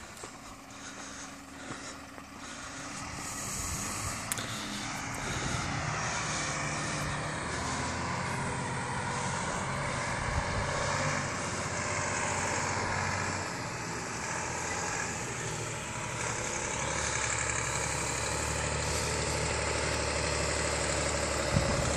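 Diesel engine of a Scania P360 fire truck running, growing louder from about three seconds in and then holding steady.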